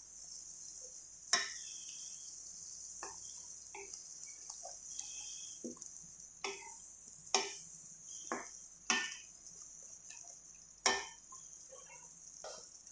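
Masala paste sizzling in oil in a metal kadai while a wooden spatula stirs and scrapes it, with a steady high sizzle and about six sharp knocks of the spatula against the pan.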